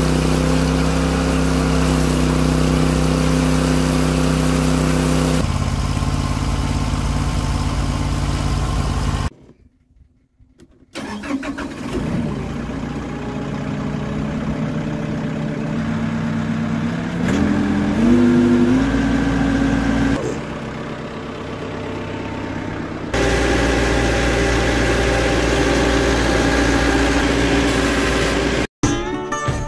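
Norwood HD36 portable band sawmill running under its engine, a steady mid-pitched engine note. It drops out for about a second roughly a third of the way in, comes back, rises briefly in pitch about two-thirds through and then settles.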